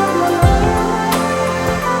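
Calm new-age background music with sustained tones, and one low thump about half a second in.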